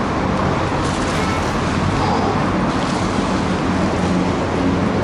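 Steady noise of heavy road traffic on a busy highway, cars and trucks running past continuously with a low engine hum under it.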